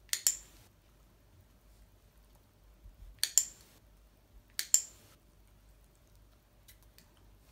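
Dog-training clicker clicked three times, each a sharp double click-clack: once just after the start, then about three seconds in and just under five seconds in. Each click is the marker that rewards the puppy's paw placement, ahead of a treat.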